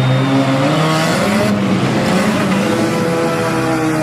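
Several demolition derby car engines running and revving together, their pitches rising and falling.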